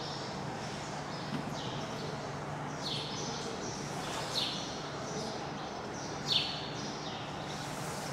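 A small bird chirping: short, sharply falling high notes repeated every second or two, the loudest near the middle and about two-thirds of the way through, over a steady low hum.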